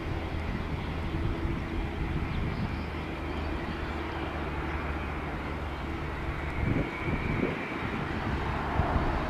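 Jet engines of a Boeing 787-9 Dreamliner airliner on its landing, a steady rumble with a faint whine that rises in pitch over the last few seconds.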